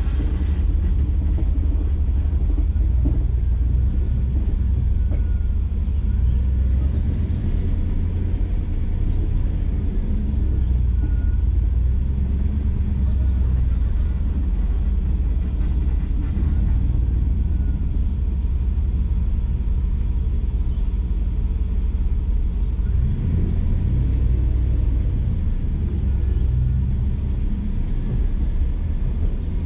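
Jeep Grand Cherokee driving slowly over a dirt trail, a steady low rumble of engine and tyres picked up by a camera on the hood.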